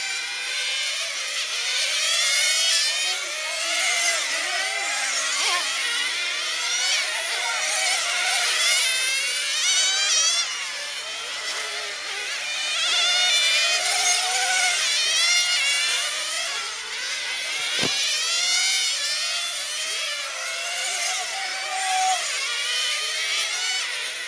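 Several 1/10-scale nitro touring cars racing, their small two-stroke glow engines revving high in overlapping whines that rise and fall. A single sharp click comes about three-quarters of the way through.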